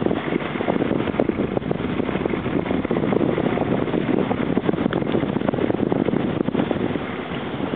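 Wind buffeting the camera's microphone during a parasail ride, a steady rushing noise with rapid flutter that eases slightly in the middle and swells again near the end.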